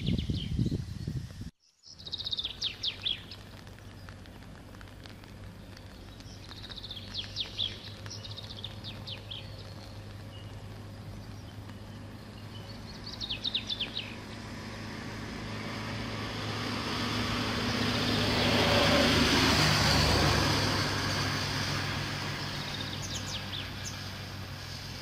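Small birds calling in short, rapid chirping series every few seconds. Meanwhile a vehicle approaches, passes about three-quarters of the way through with a swelling engine and road noise, and fades away.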